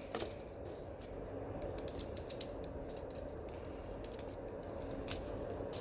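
Silver handcuff bracelet's ratchet clicking and metal clinking as the cuffs are handled, with a quick run of clicks about two seconds in.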